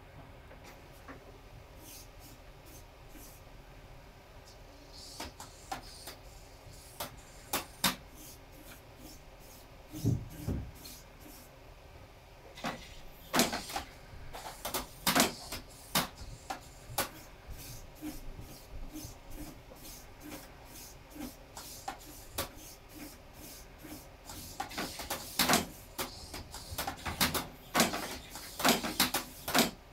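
Hobby servos in an R2-D2 replica opening and closing its dome panels and utility arms: repeated sharp clicks and snaps, in clusters, with short high servo buzzes. There is one low thump about ten seconds in.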